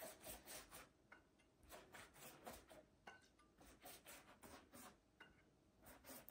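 Faint, soft taps of a silicone pastry brush dabbing melted butter and oil onto a thin sheet of rolled dough, a couple of light strokes a second.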